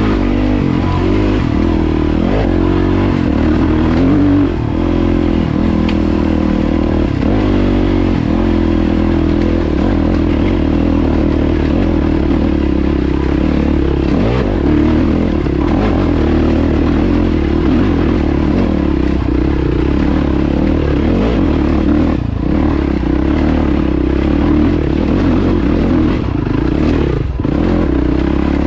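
Yamaha WR450F's single-cylinder four-stroke engine running under load while riding a dirt trail, engine speed rising and falling a little in the first several seconds, then steady. Rattles and clatter from the bike over loose rocks run through it.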